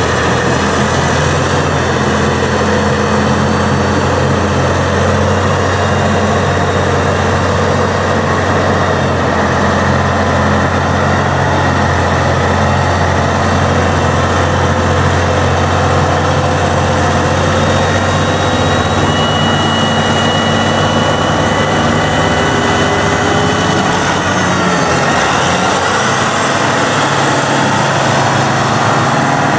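Caterpillar 627E tandem-powered wheel tractor-scraper's diesel engines running as it drives slowly, with a loud, steady low drone. Faint high whines ride over the engine note.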